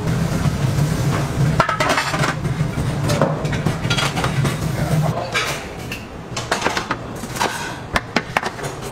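Aluminium steamer lid and baskets clinking and clanking as they are lifted and handled, a series of sharp metal knocks. A steady low hum runs under them and stops about five seconds in.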